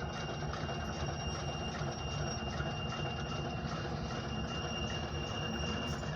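Diesel locomotive engine running steadily, a low rumble with a faint steady high-pitched whine over it.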